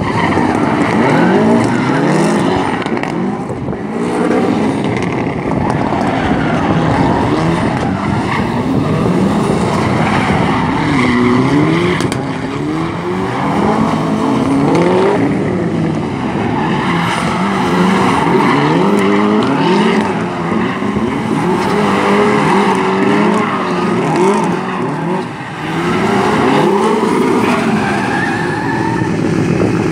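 Small hatchback competition car's engine revving hard, its pitch climbing and dropping again and again as it is driven flat out around a gymkhana course, with tyre squeal as it slides through the turns.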